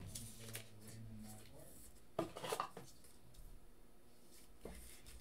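Trading cards and plastic toploaders being handled and set down on a table: quiet clicks and rustling, with a short cluster about two seconds in and a single click near the end.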